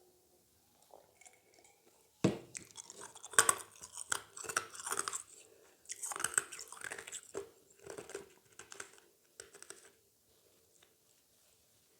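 Close-miked eating: a sharp bite about two seconds in, then crunchy chewing in irregular bursts that stops about ten seconds in.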